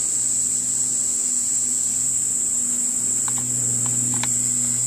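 Steady, high-pitched chorus of insects shrilling without a break, with a low steady hum beneath it that grows a little stronger past the middle, and a few light clicks near the end.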